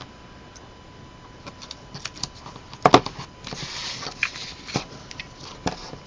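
Desk handling sounds while paper crafting: a few small ticks, a sharp knock about three seconds in as a craft knife is set down on the desk, then a brief rustle of paper.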